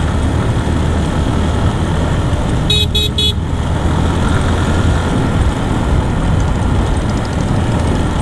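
Motorcycle riding along, a steady engine rumble with wind noise on the microphone; a vehicle horn beeps three times in quick succession about three seconds in.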